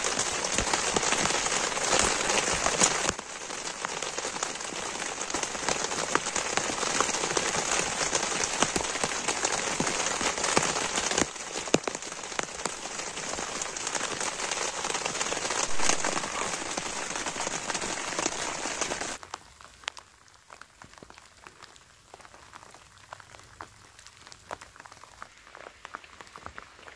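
Heavy rain beating on the fly of a Coleman tent, heard from inside: a dense, steady hiss of countless drops. About nineteen seconds in it cuts to a much quieter, sparser patter of drops.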